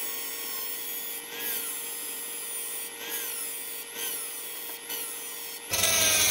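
Dremel rotary tool with an abrasive cut-off wheel grinding through a spinning 5 mm steel rod held in a drill press, parting off a crankpin. A high whine whose pitch dips briefly every second or so as the wheel bites, getting louder and rougher near the end.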